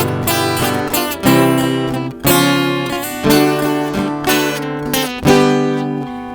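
Instrumental passage of a sertanejo song: acoustic guitars strumming chords, a fresh strum about once a second, each left ringing over a deep bass line.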